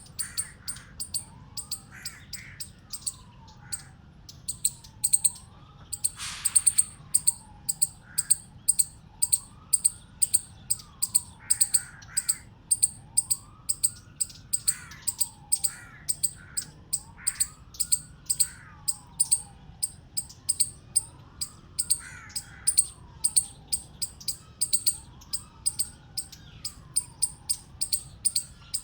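Eastern chipmunk chipping: a long, even series of short, sharp, high chips, about two to three a second. Behind them a lower call rises and falls over and over, about once a second.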